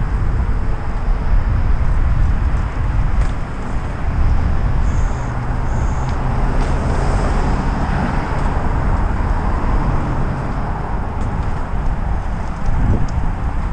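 Steady wind rush on the microphone with low rumble from riding a battery-powered vehicle along a road at speed.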